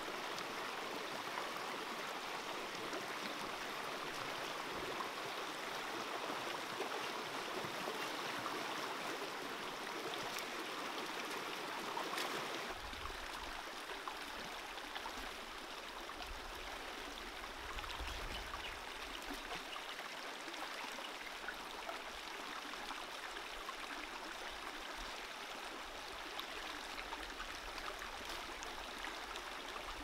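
Shallow stream running over rocks, a steady rushing babble of water. It gets a little quieter about halfway through.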